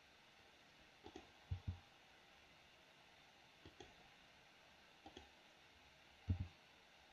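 Faint clicks of a computer mouse and keyboard, mostly in quick pairs. There are about five groups, with the loudest about a second and a half in and again near the end.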